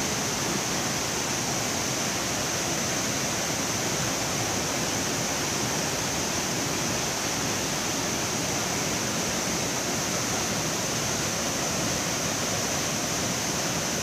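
Steady rush of the Rufabgo creek's waterfalls, an even, unbroken hiss of falling water.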